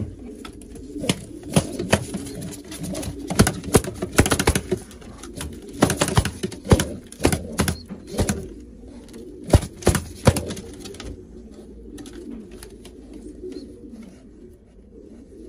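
Racing pigeons cooing steadily, with a run of sharp clicks and knocks over most of the first eleven seconds that then dies away.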